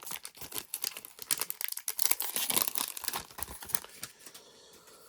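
Foil Pokémon card booster pack wrapper crinkling and being torn open: a dense run of crackles that dies away about four seconds in.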